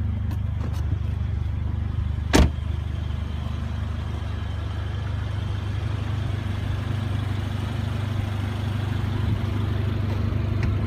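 2016 Mercedes-Benz CLA45 AMG's 2-litre turbocharged inline four-cylinder engine idling steadily, with a single sharp knock about two and a half seconds in.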